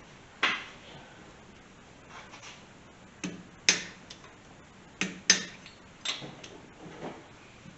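A handful of sharp clicks and knocks at irregular intervals. The loudest come in two close pairs a little past three and a half seconds and around five seconds in.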